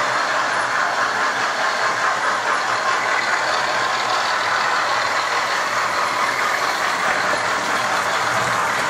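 Model railway trains running on the layout's track: a steady whirring rattle of small electric motors and metal wheels on rails.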